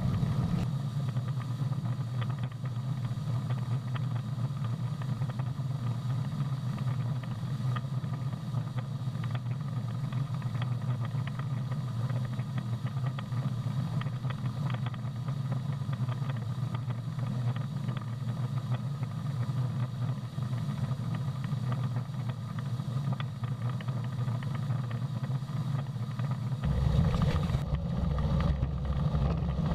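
Farm harvesting machinery engine running steadily. Near the end a deeper rumble joins in and the sound gets a little louder.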